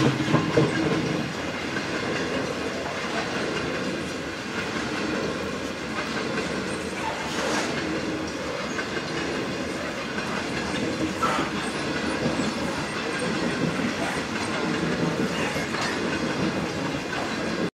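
Covered hopper wagons of a freight train rolling past close by. The wheels clack over the rail joints in a steady rumble, louder in the first second, with a brief high squeal about eleven seconds in.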